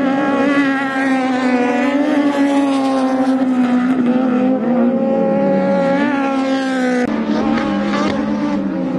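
Off-road race buggies' engines running hard at high revs, the pitch rising and falling with the throttle as they race past on the dirt track. The sound changes abruptly about seven seconds in.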